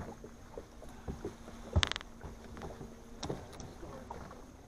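Scattered knocks and clicks on a bass boat's front deck as the angler shifts about on it, the loudest a single sharp, ringing click a little under two seconds in, over a faint steady hum that stops a little past three seconds.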